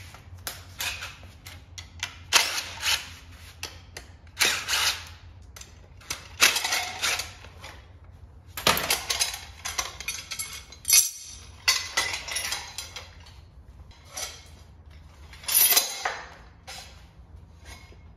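Cordless impact driver rattling bolts out of an engine block in a series of short bursts, with metal clanks as the steel brackets are pulled off and set down.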